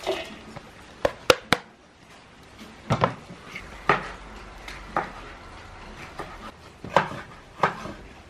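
Shredded cabbage slid off a wooden cutting board into a large metal bowl, followed by sharp knocks of wood and metal, three in quick succession about a second in and then separate ones roughly once a second.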